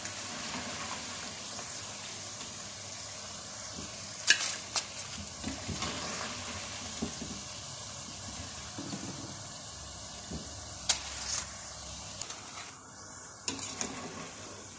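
Potato slices deep-frying in hot oil, a steady sizzle, broken by a few sharp clicks of a metal skimmer knocking against the pot as the slices are stirred and lifted out.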